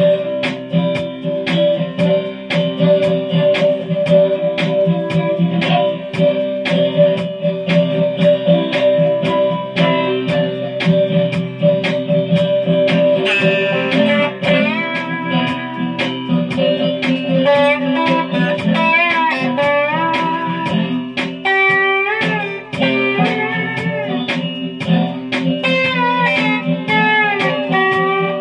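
Guitar played with a slide: a steady picked rhythm over low notes that ring on, with melody notes gliding up and down in pitch from about halfway through.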